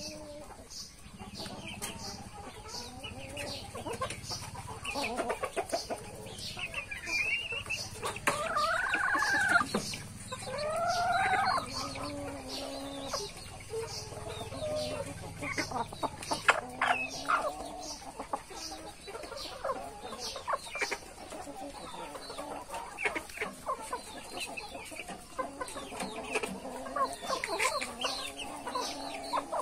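Chickens clucking as they peck at grain, with two longer, louder calls about eight to twelve seconds in.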